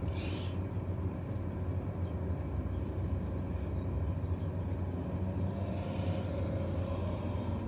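Steady low rumble of a running car.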